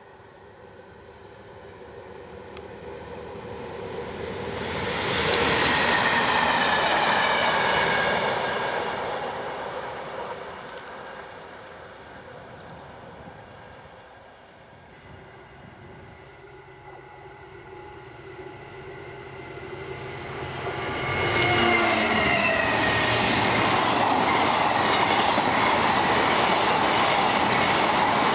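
A Class 37 diesel locomotive with a single Mk2 coach approaches and passes, its English Electric engine note swelling and falling in pitch as it goes by. Near the end a diesel-hauled freight train of flat wagons passes close: the locomotive's note drops as it passes, then the wagons' wheels rumble and clatter steadily over the rails.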